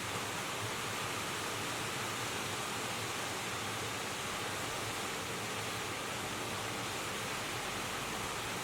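Steady rushing of river water, an even noise with no breaks or changes.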